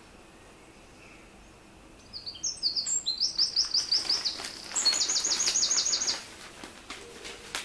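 A songbird singing one song of about four seconds: a run of quick repeated high notes starting about two seconds in, ending in a fast trill.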